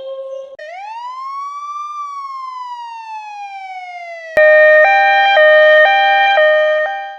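Emergency-vehicle siren sound effects: a single wail that rises and then slowly falls over about four seconds. After a sharp click comes a louder two-tone hi-lo siren, switching pitch about every half second.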